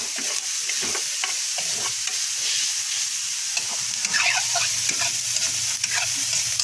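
Ground pork sizzling steadily as it sautés in oil in metal frying pans, with a metal spatula scraping and clinking against the pan again and again as it is stirred.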